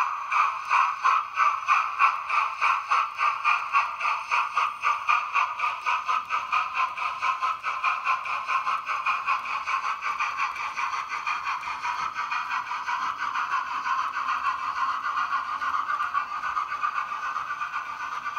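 Model steam locomotive running with a rhythmic chuffing beat that quickens from about two to about four beats a second as the train gathers speed, then blurs into a near-steady sound.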